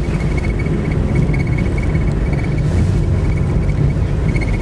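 Peugeot 106 driving, heard from inside the cabin: steady low engine and road rumble.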